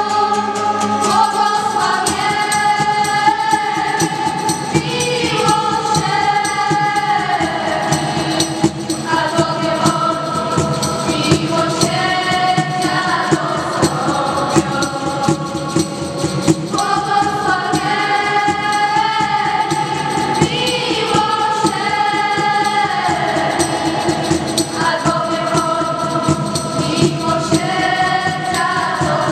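A group of young voices singing a religious song together, accompanied by a strummed acoustic guitar.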